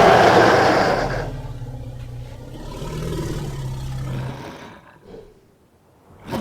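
Werewolf transformation sound effect: a loud roar that dies away over about a second into a low, steady growl. The growl fades out about four and a half seconds in, followed by a few short faint sounds and a brief sharper one at the very end.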